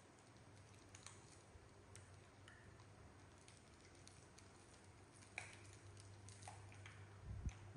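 Faint scattered clicks and crinkles of plastic candy wrappers being handled and unwrapped by young macaques, over a low steady hum, with a soft knock near the end.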